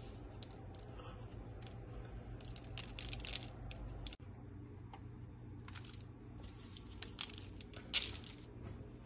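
Parchment paper on a baking tray crinkling and black seeds ticking onto it as pinches are sprinkled over the dough, in short crackly clusters with the sharpest one near the end, over a steady low hum.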